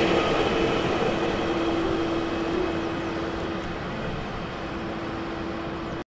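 A train passing and moving away: its rolling noise fades gradually, with a steady hum over it, and the sound cuts off abruptly near the end.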